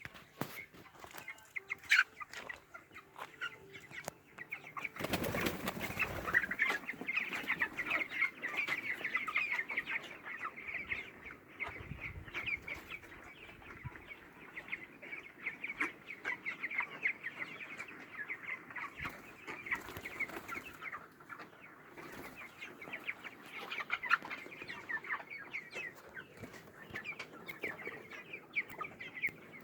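A flock of chickens calling together in a dense, continuous chatter of clucks and cheeps, with a burst of wing flapping about five seconds in.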